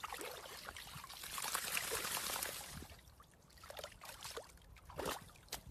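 Golden retriever splashing and digging in a muddy puddle: a spell of churning, sloshing water for the first few seconds, then a few separate splashes.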